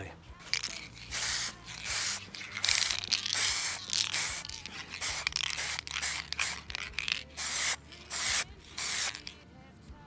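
Aerosol spray can of satin clear lacquer hissing in a series of short bursts, about a dozen, with brief pauses between them, as coats of lacquer are sprayed on. The bursts stop about a second before the end.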